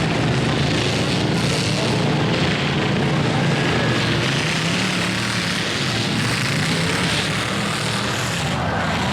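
Several demolition derby cars' engines running and revving at once, a loud, dense, steady din with engine notes rising and falling.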